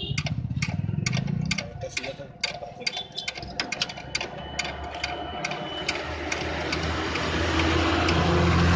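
Socket ratchet wrench clicking in short, uneven runs as it is worked back and forth on a fitting in a car's engine bay. From about six seconds in, a low rumble with a hiss builds up and grows louder toward the end.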